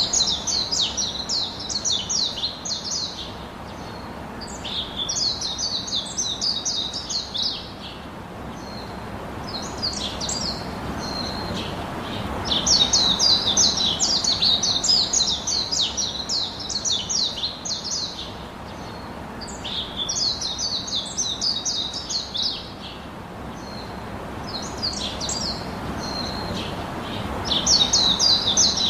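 Birds chirping in quick, high-pitched chattering runs, in bouts of a few seconds with short lulls between, over a steady background hiss.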